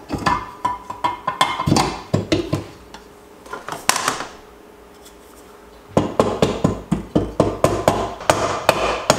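Wooden-handled mallet tapping the aluminium crankcase halves of a Yamaha YZ250 two-stroke engine together, in a quick even run of about four taps a second over the last three seconds. Before that come a few knocks and clatter from the case halves being fitted, and a pause.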